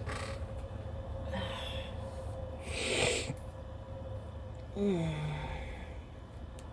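A person's sniffs and sharp breaths through the nose while an allergy sneeze builds but won't come. The loudest is a hard sniff about three seconds in, and a short hum falling in pitch follows about five seconds in.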